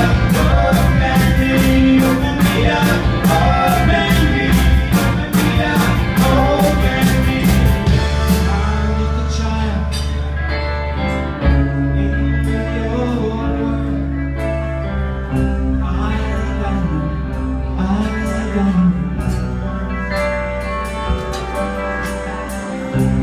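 Live rock band playing: electric guitars, electric bass and a drum kit with cymbals. About eight seconds in the steady drum beat stops, leaving the bass and guitar chords sustaining with only a few scattered hits.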